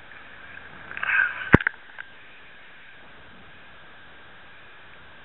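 Handling noise as a landed lingcod is brought aboard a kayak: a short scuffle about a second in, then one sharp knock and a few small clicks, over a steady faint hiss.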